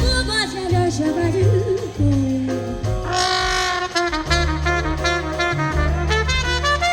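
Jazz big band playing an instrumental passage: a wavering solo melody over steady bass notes, with the full band coming in on a bright chord about three seconds in.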